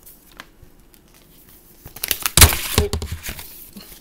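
A large hardback picture book being handled close to the microphone: faint rustling, then about halfway through a loud burst of rustling and knocks as it is lifted up and bumps, lasting under two seconds.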